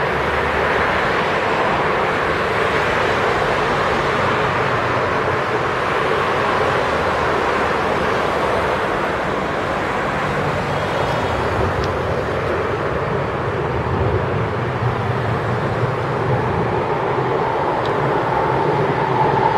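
City road traffic: cars driving along a busy street, a steady, even noise without distinct events.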